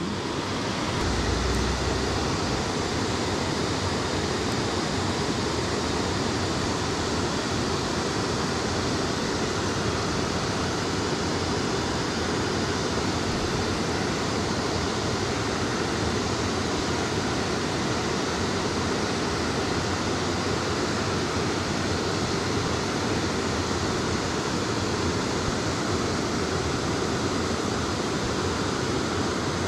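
Steady rush of flowing stream water, an even hiss at a constant level, with a brief low bump about a second in.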